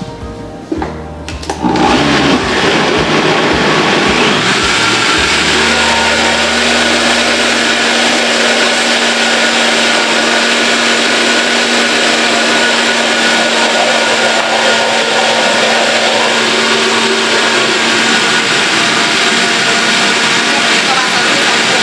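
High-powered countertop blender switched on about two seconds in and running steadily, puréeing a thick cheese-and-chili sauce while milk is added to thin it.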